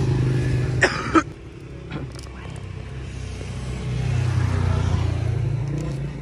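A motor vehicle engine runs with a steady low hum, fading and then swelling again. About a second in, a brief loud rustling burst cuts over it.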